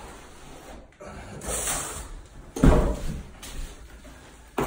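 Plastering trowel scraping wet bonding plaster, with a short scrape about a second and a half in, then a loud thump just under three seconds in and another right at the end.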